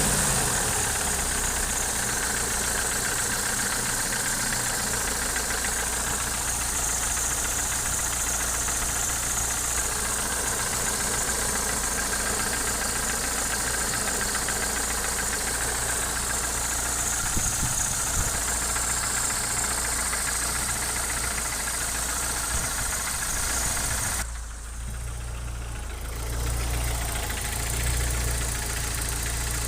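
Opel C20NE 2.0-litre eight-valve four-cylinder engine running steadily with a knock in it that the owner cannot identify. The knock persists even with new Kolbenschmidt hydraulic lifters fitted, so the lifters are not its cause. The sound goes briefly duller and quieter for about two seconds near the end.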